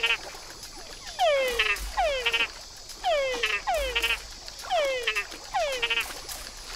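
Two male frogs calling back and forth in a contest of calls, each call a falling whine ending in a quick trill. The calls come about one a second, overlapping one another.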